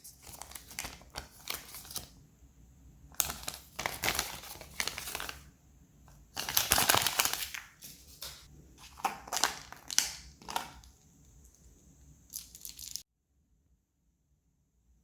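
Foil wrapper of a Kinder Surprise chocolate egg crinkling and tearing as it is unwrapped by hand, in irregular bursts. The loudest burst comes a little after the middle, and the sound stops suddenly near the end.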